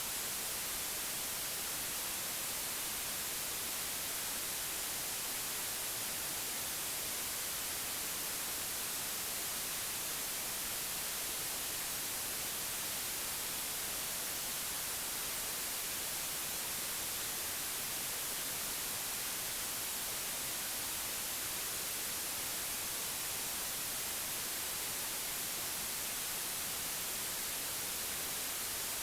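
Steady white noise: an even hiss, brightest in the high end, with no change in level or character.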